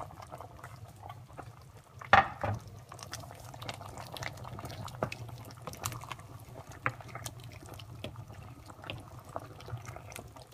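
Pot of beef and vegetable soup bubbling as it cooks, with scattered small pops over a low steady hum, and a sharp knock about two seconds in.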